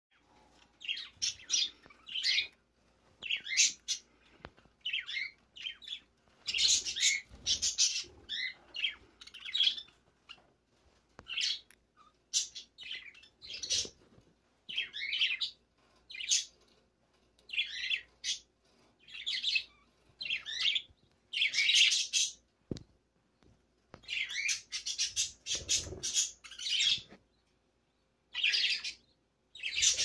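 Young budgerigar chick calling in short, harsh chirps, repeated one after another every second or so with brief pauses.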